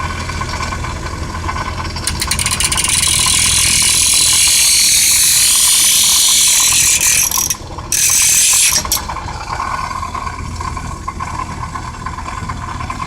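Belt-driven bench grinder running with a steady hum and whine. From about two seconds in, a steel nail held in pliers is ground against the wheel with a loud hissing grind lasting about five seconds. After a brief break there is one more short grind, and then the grinder runs on alone.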